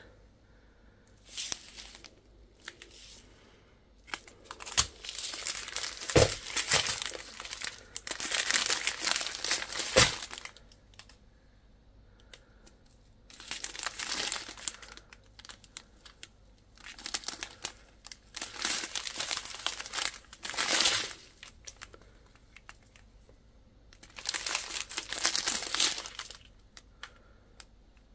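Clear plastic strip-packs of diamond-painting resin drills crinkling as they are handled and turned, in several bursts with short pauses between them, with a few sharp clicks.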